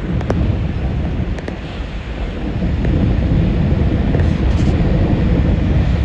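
Wind buffeting the microphone, a heavy low rumble that grows louder about halfway through.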